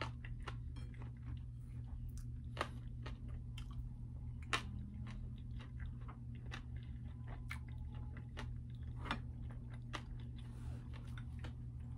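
A person chewing food, with scattered small wet clicks and smacks of the mouth, over a steady low hum.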